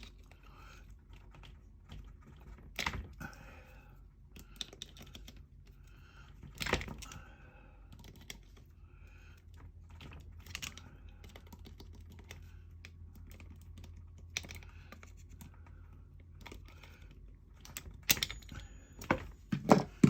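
Small plastic clicks and taps, with a few louder knocks, as the wires are worked out of the slots of an RV wall outlet's plastic push-in connector.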